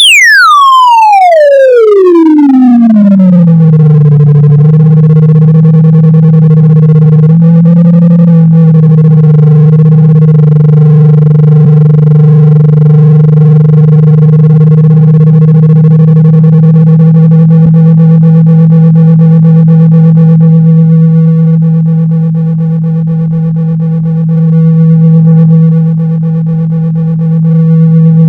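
Loud electronic test tone that glides down from a very high pitch to a low hum near 162 Hz over the first few seconds, then holds steady. It is a speaker-cleaning tone, played to vibrate water and dust out of a phone speaker.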